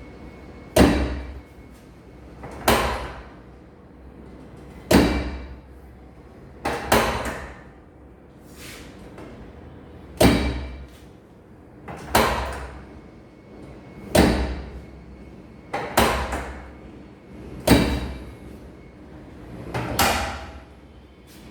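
Repeated heavy thuds during a chiropractic treatment, about one every two seconds and ten in all, each dying away over about a second.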